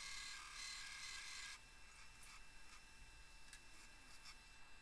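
Faint hiss of a 2x72 belt grinder's 36-grit belt grinding the edge of a steel plate, which stops about one and a half seconds in; after that only a few faint light clicks.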